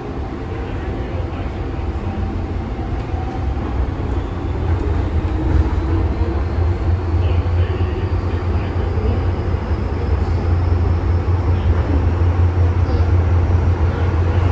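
MTR M-train electric multiple unit pulling out of a station and gathering speed, heard from inside the car: a steady low rumble that grows louder throughout, with a faint motor whine slowly rising in pitch.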